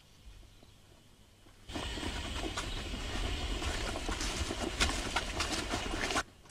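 Rustling and clattering of people carrying sacks of rice along a paddy-field path, a dense run of scuffs and small knocks. It starts suddenly about two seconds in and cuts off just before the end.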